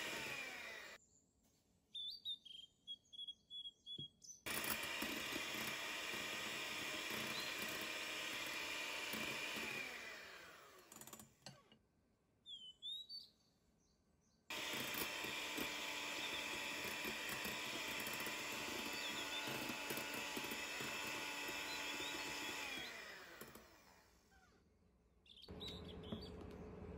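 Electric hand mixer whipping egg whites and sugar into meringue in a glass bowl. It runs steadily in three stretches, each winding down in pitch as it is switched off, with short pauses between them holding a few light clicks.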